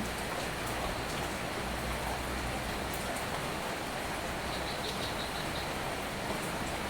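Soft, steady rain falling, an even hiss of drops with no change in level. About four and a half seconds in, a short run of high chirps sounds briefly over the rain.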